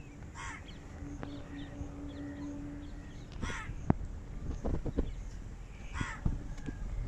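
A crow cawing: three short, harsh caws a few seconds apart, with small bird chirps, a faint steady hum, and a sharp click with a few low knocks in the middle.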